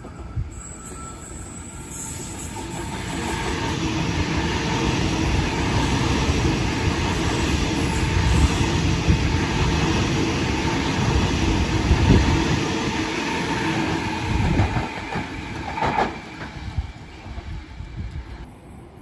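Sydney Trains Waratah double-deck electric train running through a station at speed: the rumble of wheels on rails builds up over the first few seconds, holds loud with a steady whine as the carriages pass, then fades away over the last few seconds.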